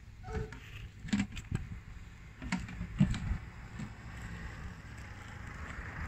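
A handful of sharp knocks and rustles in the first half, over a steady low rumble.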